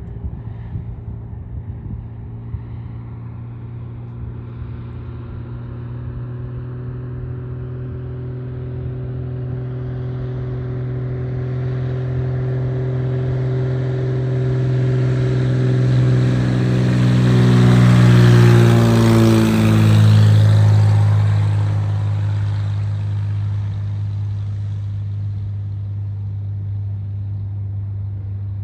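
Single-engine floatplane's piston engine and propeller growing louder as it flies low past, dropping in pitch as it goes by about two-thirds of the way through, then fading as it settles onto the water.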